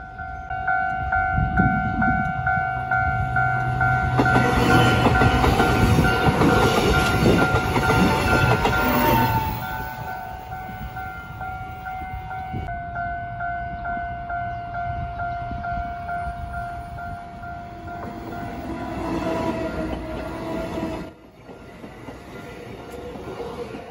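An electric commuter train passes close by with wheel and rail noise, loudest for several seconds and then fading, over a level-crossing warning bell that rings in a steady repeating pattern. Later another train draws near over the same bell and goes past the crossing.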